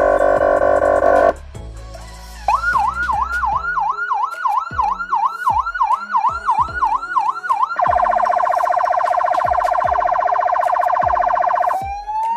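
Federal Signal SP 720 electronic siren stepping through its tones. First comes a harsh buzzing horn tone for about a second. After a short gap it plays a fast yelp, about three sweeps a second, for some five seconds, then a harsh rapid pulsing tone for about four seconds, and near the end a wail begins to rise.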